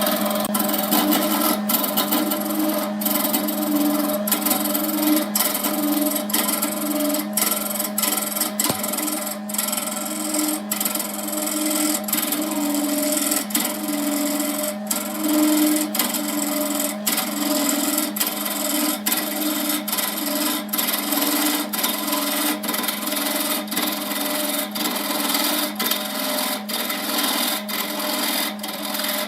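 Wood lathe running with a steady motor hum while a tool or abrasive scrapes and rasps against the spinning wood-and-epoxy blank.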